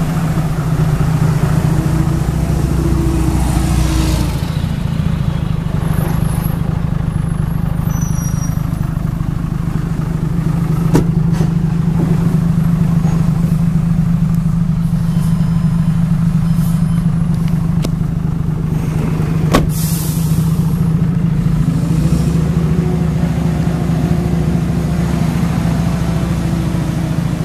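2008 Dodge Ram 2500's 6.7 L Cummins straight-six turbo-diesel idling steadily, with a couple of sharp clicks partway through.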